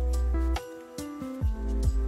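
Background music with a deep bass line and a steady beat.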